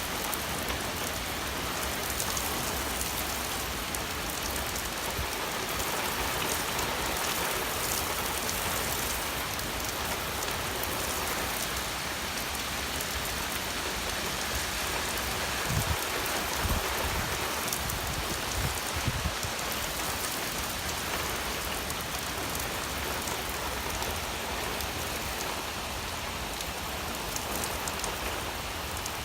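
Heavy rain pouring steadily in a severe storm, a dense even hiss of rain on surfaces, with a few brief low thumps a little past the middle.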